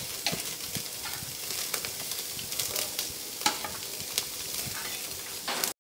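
Sliced meat sizzling on a wire grill rack over glowing charcoal, a steady hiss with frequent small crackles and pops as fat cooks.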